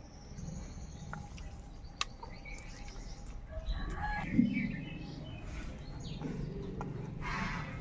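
Domestic chickens clucking and small birds chirping, in short scattered calls, with a brief raspy call near the end.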